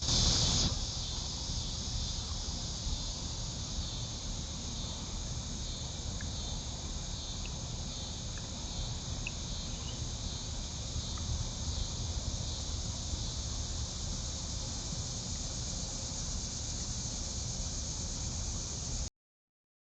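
Steady chorus of crickets and other insects: a continuous high trill pulsing faintly, over low microphone hiss.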